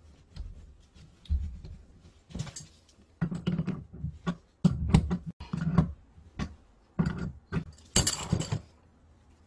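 A fleece jacket sleeve rubbing and brushing right against the microphone, with a run of irregular close knocks and scuffs, and a louder scratchy rustle about eight seconds in.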